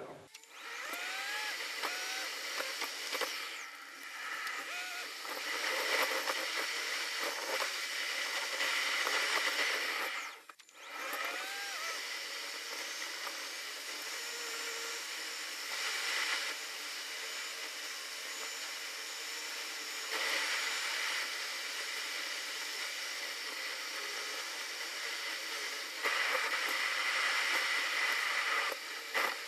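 Road and wind noise heard inside a moving car: a steady rushing hiss that swells louder in places and drops out briefly about ten seconds in.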